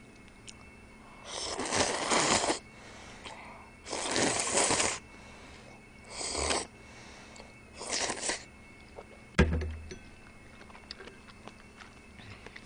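Loud close-up slurping of seafood kalguksu noodles and broth from a bowl: four slurps, the first two the longest. A single sharp knock follows a little past nine seconds.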